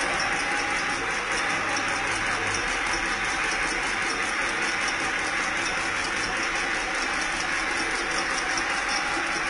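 Vietnamese-made high-speed automatic incense stick (agarbatti) making machine running: a steady mechanical clatter with a fast, even beat of several strokes a second.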